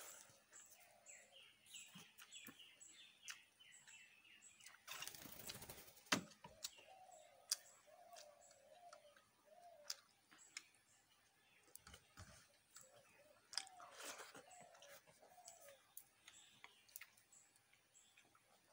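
Close-up chewing and wet mouth clicks of a person eating rice by hand, faint throughout, with a bird chirping in the background.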